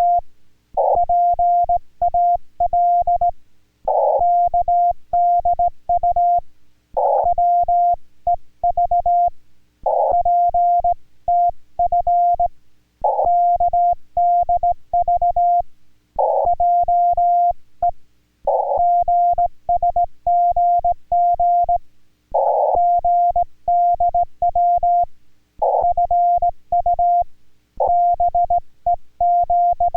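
Morse code (CW) from an amateur radio transceiver: a single steady beep keyed on and off in dots and dashes, sent in Korean Morse, in groups of characters with short pauses between them and faint clicks at each keying.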